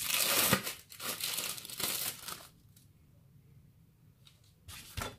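Crinkling and rustling as slices of sandwich cheese are peeled apart by hand, for about the first two and a half seconds, then quiet with a couple of soft short handling sounds near the end.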